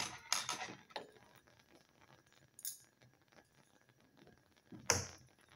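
Glass test tube and lab gear being handled on the bench: a few light clinks and knocks in the first second, then one sharper knock near the end.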